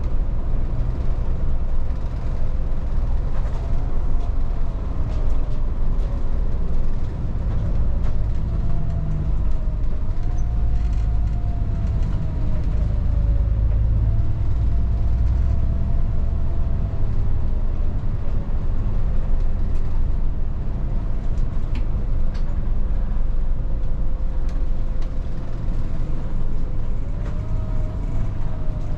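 Volvo 8900 bus driving, heard from inside the cabin: a steady low drivetrain rumble with a faint whine that rises and falls as the speed changes, and a few light rattles.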